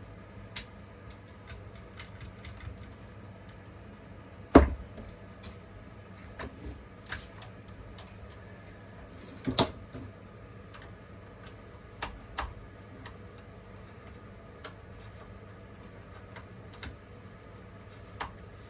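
Metal chainsaw parts being handled and fitted by hand: irregular clicks, taps and clinks, with two louder knocks, one about four seconds in and another near ten seconds, over a low steady hum.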